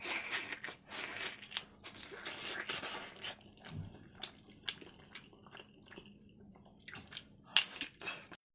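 Close-up mukbang eating sounds: biting into, tearing at and chewing a braised pork trotter held in the hands, heard as a run of short smacking and clicking mouth sounds.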